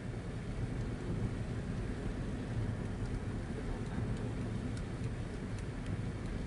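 Steady low rumble of a car driving on a wet road in rain, heard from inside the cabin, with tyre hiss and a few faint ticks of raindrops on the windscreen.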